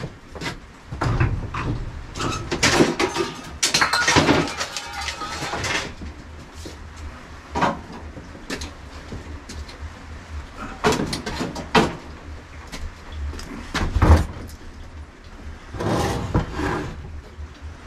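Clanks, knocks and scraping as a heavy Honda CBR600 motorcycle engine is lifted off a metal frame, carried and set down on a wooden workbench, with one loud low thump about fourteen seconds in.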